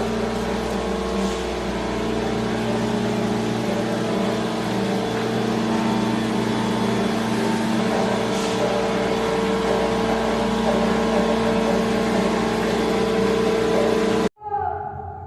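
Heavy machine engine running steadily with a constant hum, cutting off abruptly near the end.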